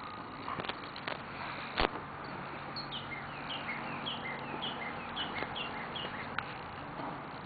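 A Belgian Malinois scuffles with a bite pillow on dry dirt, making scattered knocks and a sharp thump about two seconds in. From about three to six seconds in, a bird gives a quick repeated chirp of falling notes, about two a second.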